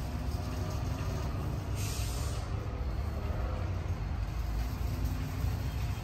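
Steady low outdoor rumble, with a short hiss of air about two seconds in.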